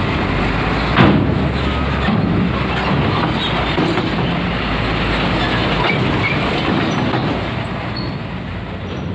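A coach driving up a ferry's steel loading ramp: its engine running, mixed with a loud rolling rumble and clatter of heavy tyres over the steel plates, and one sharp knock about a second in.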